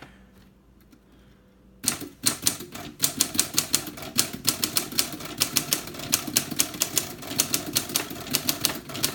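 L.C. Smith & Corona Standard manual typewriter being typed: a quick, uneven run of sharp key and type-bar strikes, several a second, starting about two seconds in. Its typing action is solid, with a short throw.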